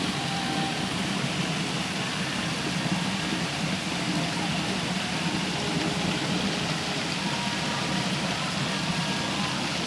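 Steady rush of a river flowing over rocks, an even, unbroken noise.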